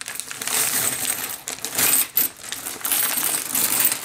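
Hundreds of silver Mercury dimes pouring out of a plastic bag onto a wooden tabletop: a continuous jingle of coins clinking and sliding over one another, with a bright ringing edge.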